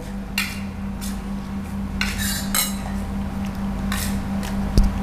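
Spoons clinking and scraping against dinner plates as people eat, in a handful of separate clicks over a steady low hum.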